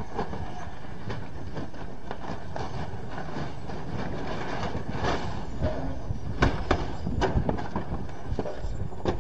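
CH-47 Chinook tandem-rotor helicopter running on the ground with a steady heavy rotor chop, then a run of loud bangs and clanks from about five seconds in as the airframe shakes apart and the rotor blades strike and break: the helicopter destroying itself in ground resonance.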